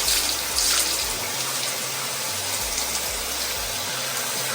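Water running steadily from a tap over a wig, rinsing the dye out of the hair.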